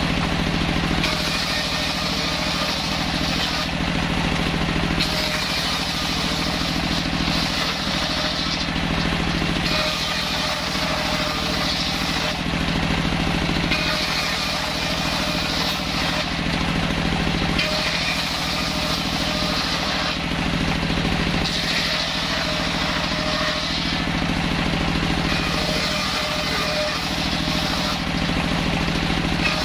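Large table-mounted circular saw ripping a wooden plank into strips: the blade's cutting noise swells with each pass, about seven cuts a few seconds apart, over the saw's steadily running drive.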